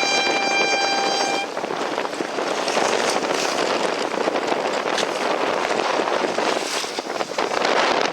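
Strong wind buffeting the microphone and water rushing past a Finn dinghy sailing in heavy wind. At the start a horn gives one steady blast about a second and a half long.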